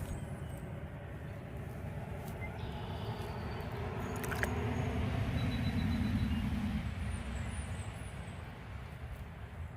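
Low rumble of a passing motor, swelling to its loudest about six seconds in and then fading away.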